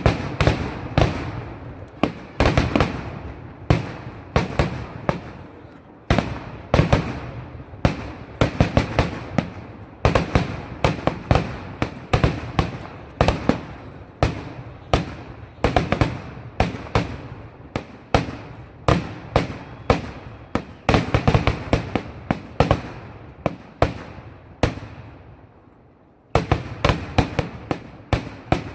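Kerala temple-festival fireworks (vedikettu): a rapid, continuous barrage of loud firecracker blasts, several a second, each trailing off in an echo. The barrage thins out and pauses about 25 seconds in, then starts again.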